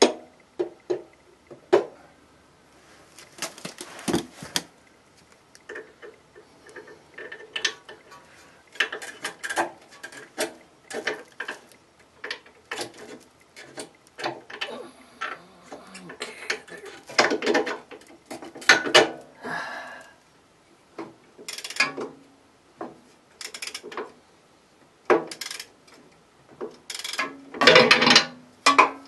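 Irregular metallic clinks, clicks and knocks of hand tools and steel front-suspension parts being handled on a car, with a louder burst of metal clatter near the end as a disc brake rotor is fitted onto the spindle.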